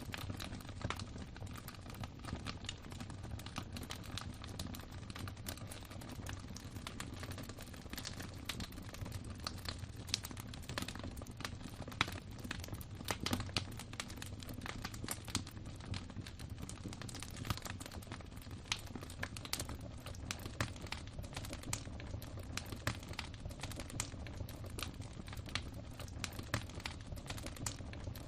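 Wood fire crackling in a fireplace: many irregular snaps and pops over a steady low rumble of burning.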